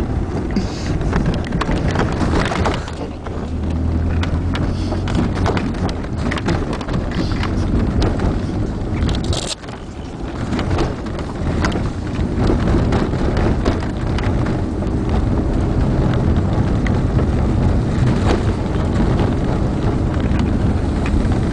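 Car driving over wet, badly potholed asphalt, heard from inside the cabin: a constant rumble of road and tyre noise, broken by frequent knocks and jolts as the wheels drop into the potholes.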